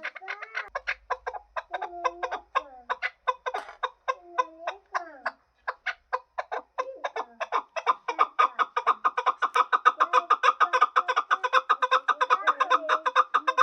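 Chukar partridges calling: a rapid, rhythmic run of sharp chuck notes that grows faster and louder about eight seconds in, with lower wavering call notes underneath.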